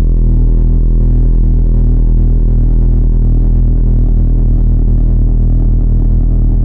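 A very deep, loud synthesized bass drone: a steady low rumble with a stack of sustained low tones, and a throb that pulses about twice a second in the first half and then smooths out.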